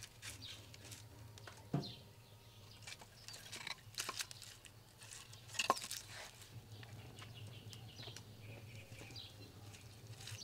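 Split firewood logs knocking together as they are pulled from a woodpile and gathered into the arms: a few sharp wooden clunks, the loudest a little past the middle.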